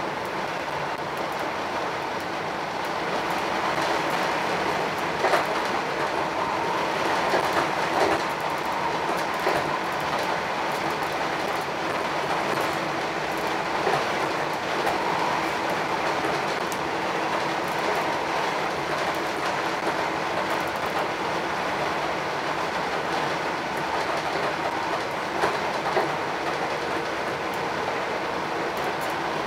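Inside a Northern class 319 electric multiple unit running at speed: the steady rumble and hiss of the wheels on the track, with a scattering of sharp clacks as the wheels run over the rails.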